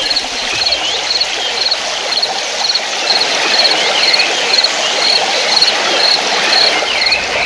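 Nature ambience: a dense bed of small chirps with one short, high chirp repeating evenly about every 0.6 s, over a steady hiss like running water.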